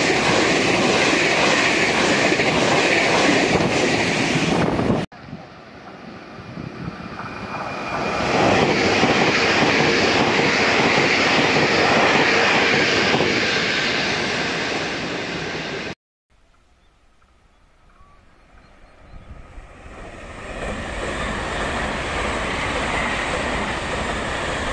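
Taiwan Railway trains passing at speed, in three pieces cut together. The first is a train already going past loudly, cut off suddenly about five seconds in. The next train approaches and rushes past, and is cut off about sixteen seconds in; after a short quiet spell a third train approaches, growing steadily louder.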